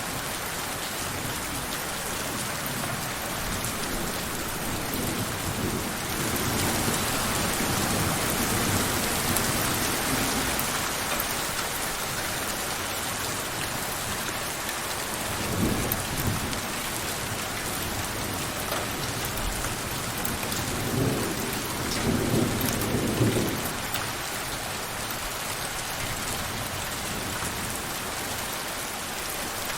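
Steady rain falling, heavier for a few seconds early in the stretch. Thunder rumbles low twice in the second half, briefly and then for a couple of seconds.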